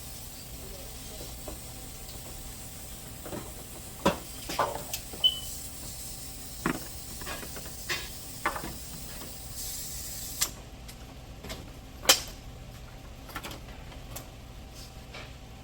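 A steady hiss that cuts off suddenly about ten and a half seconds in, with scattered sharp clicks and knocks of tools and parts being handled.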